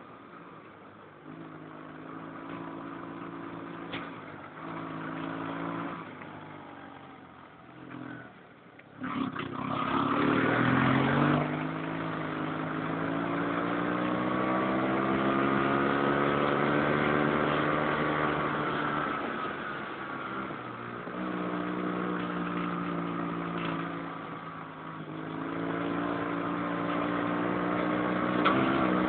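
Dune buggy's engine running while driving, steady at first with a few short drops in throttle, then revving up sharply about nine seconds in and holding higher revs for about ten seconds before easing back. It picks up again near the end.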